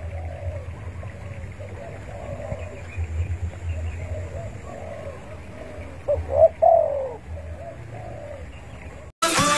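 Spotted dove cooing: a run of soft repeated coos, then a louder, fuller coo phrase about six seconds in, over a low steady rumble. Electronic music cuts in abruptly just before the end.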